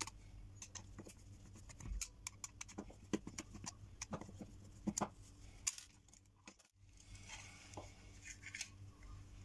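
Handling noise: irregular light clicks and taps as a plastic locator housing, its antenna rods and its circuit board are picked up and moved about. The audio cuts out for a moment about two-thirds of the way through.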